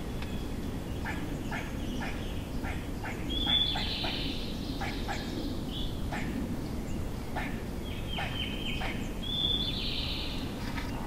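Wild turkeys clucking and yelping in a loose, irregular series of short notes. A bird's high, steady whistled notes come in about three and a half seconds in and twice near the end.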